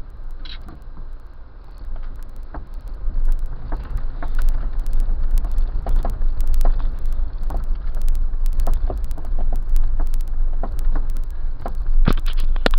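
A Jeep driving slowly over a rough, muddy dirt track: a steady low rumble, with scattered knocks and clicks as it bumps along.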